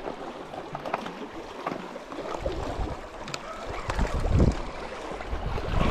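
Waves washing against shoreline rocks with wind on the microphone, and scattered clicks as a spinning reel is cranked against a hooked fish.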